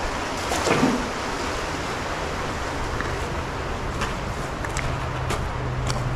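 Creek water rushing steadily over a shallow bed, with a brief knock under a second in and a low steady hum joining from about a second and a half in.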